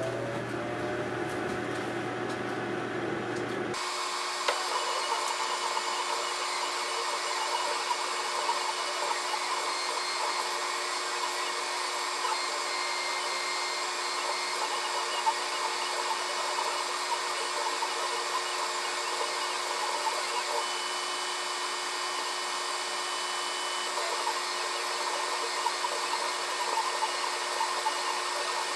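Sculpfun S6 laser engraver running as it burns a logo into wood: a steady fan-like whir with a few faint steady tones in it. The sound changes and gets slightly louder about four seconds in, then holds steady.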